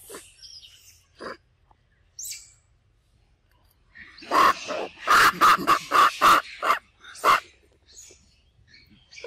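Macaque calls: a rapid series of about nine short, loud, rough calls over some three seconds, starting about four seconds in, after a few fainter single sounds.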